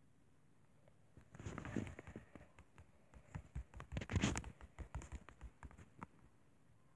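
Fingertips tapping on a tablet's touchscreen while typing on the on-screen keyboard: a brief handling noise about a second in, then a run of faint, irregular light taps.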